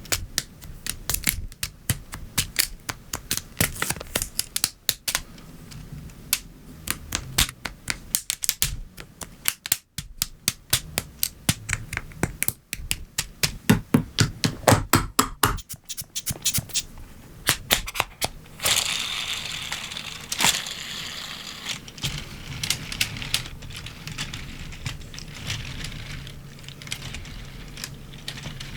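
LEGO Technic plastic pieces being snapped and pressed together by hand: a quick, uneven run of sharp clicks and taps, with a short stretch of rustling, scraping plastic about two-thirds of the way through.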